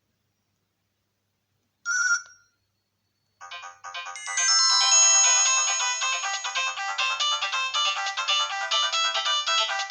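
Nokia 108 mobile phone ringtones: a short chime about two seconds in, then from about three and a half seconds a busy polyphonic ringtone melody of quick notes plays.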